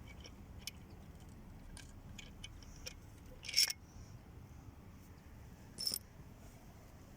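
Small metal engine parts clinking and tapping together as they are handled, with two louder clinks about three and a half and six seconds in.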